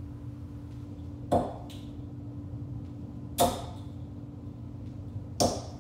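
Three steel-tip darts hitting a Prodigy bristle dartboard, one about every two seconds, each a short sharp thud, over a low steady hum.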